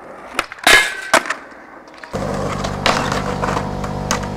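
Skateboard knocks: three hard hits in the first second or so, the loudest one ringing briefly. About two seconds in the sound cuts abruptly to a steady low hum.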